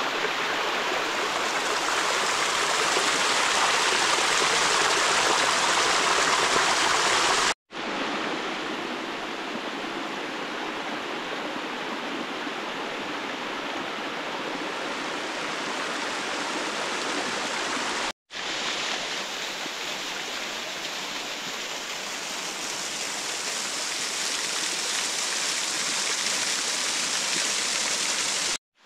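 Small mountain-stream waterfalls splashing down over rock: a steady rush of falling water. It breaks off abruptly twice and resumes each time with a slightly different, quieter water sound from another cascade.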